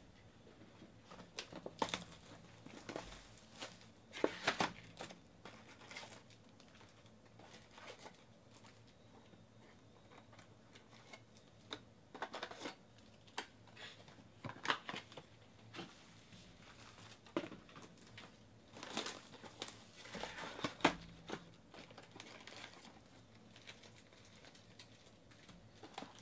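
Plastic shrink wrap being torn off a trading-card box and crinkled, along with the cardboard box being handled and opened, in scattered bursts of crinkling, rustling and clicks.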